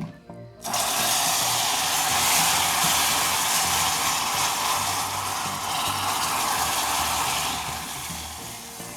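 Water poured onto molten caramelized sugar in a pan: a sudden loud hiss of boiling water and steam begins about half a second in, holds for several seconds, then dies down near the end.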